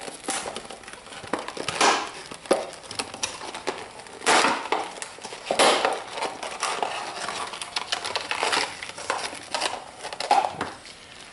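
Packaging of a new BoreSnake Viper bore cleaner being handled and torn open by hand, with irregular rustling and crinkling and several sharper crackles.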